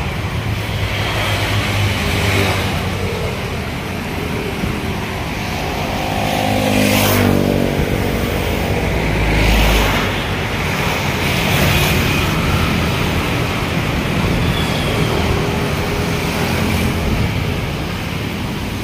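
Steady road traffic noise with a low rumble, and a vehicle passing close by about seven seconds in.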